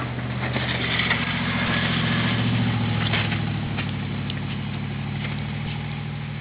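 A motor vehicle's engine running steadily, growing louder to a peak a couple of seconds in and then slowly fading.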